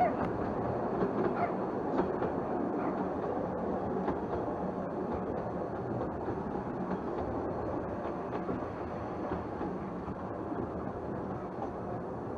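Narrow-gauge railway carriage rolling along the track, heard from inside the carriage: a steady rumble and rattle with a few light clicks over the rail joints and points in the first couple of seconds.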